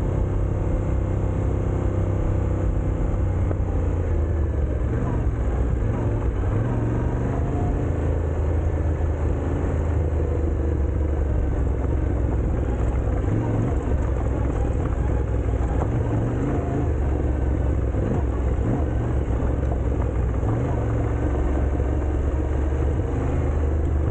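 A vehicle engine running steadily at fairly constant low revs, with a rushing noise over it.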